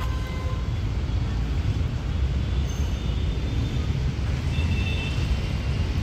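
Steady low rumble of distant road traffic, with faint high-pitched tones twice in the middle.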